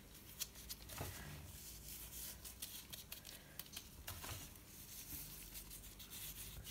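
Faint rustling and crinkling of disposable-gloved hands pressing and rolling a skewered beef strip in a plate of dry suya spice (ground groundnuts and pepper), with soft knocks about a second in and again about four seconds in.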